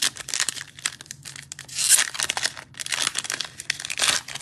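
Foil trading-card pack being torn open, the wrapper crinkling and ripping in quick crackling tears, with the loudest rip about two seconds in.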